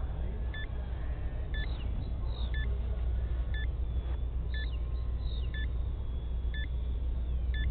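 A short two-tone electronic beep repeating about once a second over a steady low rumble of wind on the microphone, with birds chirping now and then.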